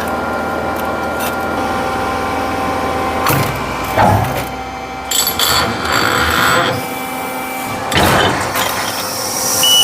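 Press brake running with a steady hum while 9 mm steel plate is bent into pin brackets, with a few sharp knocks about 4, 5 and 8 seconds in.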